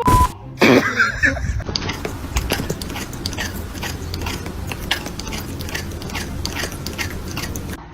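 Crunchy chewing, an even run of sharp crunches at about three a second.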